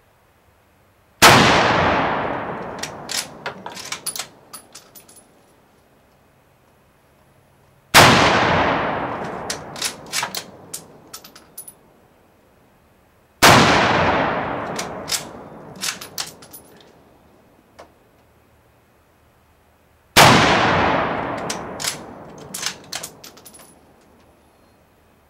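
Four shots from a Mosin-Nagant bolt-action carbine in 7.62x54R, several seconds apart, each ringing out in a long echo that fades over about three seconds. Each shot is followed by a run of sharp metallic clicks and clinks as the bolt is worked for the next round.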